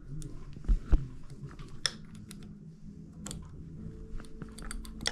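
Irregular light clicks and taps of tools and bike parts being handled, with two dull knocks a little under a second in.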